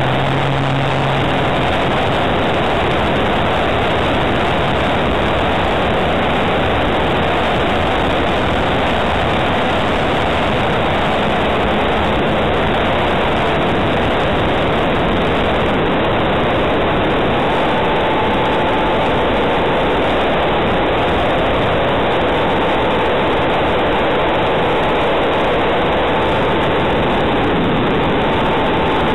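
Steady, loud rush of wind and motor noise from a small camera mounted on a flying model aircraft, through take-off over grass into climbing flight. A faint steady whine joins a little past halfway.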